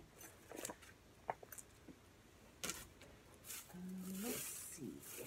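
Scattered light knocks, clicks and rustling from objects being handled and moved while someone rummages for the next item. A short hummed voice sound comes just before four seconds in, followed by a longer rustle.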